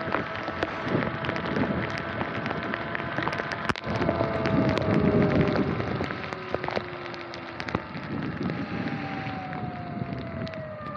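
Sur-Ron electric dirt bike riding through heavy rain: tyres hissing through standing water and rain spattering on the camera in many sharp ticks, with the motor's faint whine sliding slowly down in pitch. The spray swells louder about four seconds in.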